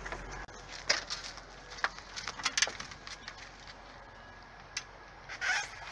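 Scattered light clicks and knocks as a reacher-grabber tool and plastic hanging-plant pots are handled inside a metal dumpster, with a brief rustle near the end.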